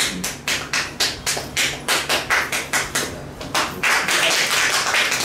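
A group of people clapping in unison, a steady rhythm of about three claps a second.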